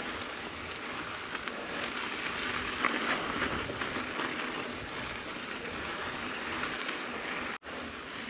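Mountain bike rolling along a dirt trail: a steady crunch and rattle from the tyres and bike, with wind on the microphone. The sound breaks off for an instant near the end.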